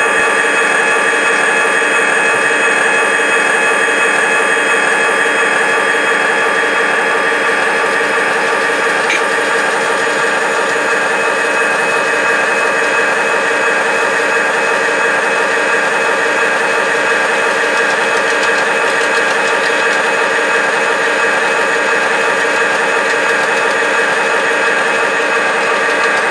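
Model diesel locomotive's engine sound running steadily at one unchanging pitch, a constant drone of several tones.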